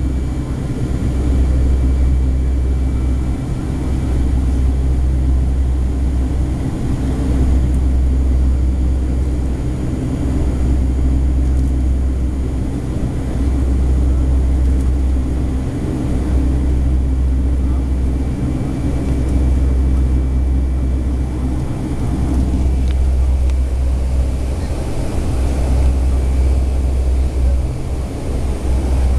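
Boeing 757-300 cabin noise while climbing after takeoff: a deep, steady rumble of engine and airflow that swells and eases every few seconds, with faint steady whining tones above it.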